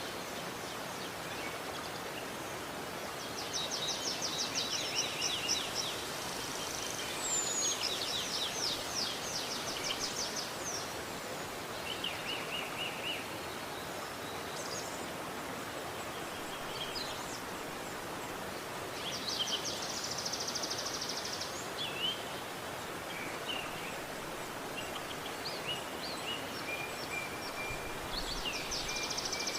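Steady rush of flowing river water. A songbird sings rapid trilled phrases over it four times, with scattered short high notes in between.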